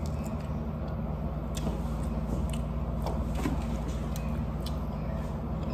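Chewing on a lemon pepper chicken wing: scattered small crunches and mouth clicks over a steady low hum.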